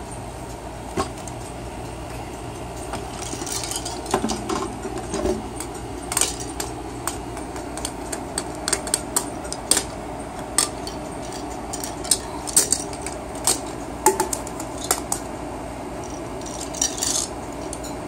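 Toys clattering and clicking as a baby handles and knocks them about: irregular sharp knocks and rattles, more frequent after the first few seconds.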